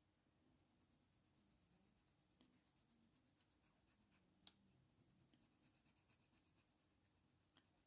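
Near silence, with faint scratching of a Faber-Castell Polychromos coloured pencil (Cold Grey I) laying down a base layer on hot-press watercolour paper, and a few faint ticks, the clearest about four and a half seconds in.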